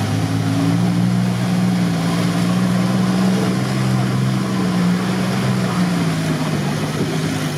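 SUV engine running steadily under load as the vehicle pushes through deep mud and water, with the churning and splashing of the wheels in the bog; the engine note sags a little near the end.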